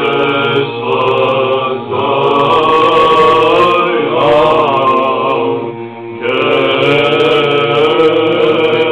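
Orthodox liturgical chant sung by monks' voices: a slow melodic line over a steady held drone note, with a brief pause between phrases about six seconds in.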